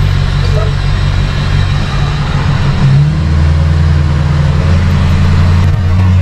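Tow truck's engine running steadily, its low note shifting about halfway through.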